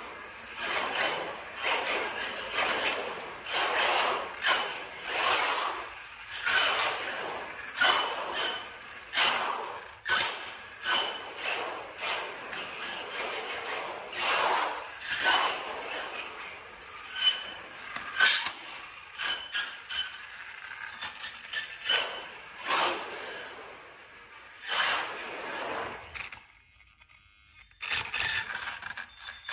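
Losi Mini 8ight-T electric RC truggy driving on a concrete floor: its Castle brushless motor and gears whining, rising and falling with each burst of throttle, tyres scrabbling on the concrete. It goes quiet briefly near the end, then starts up again close by.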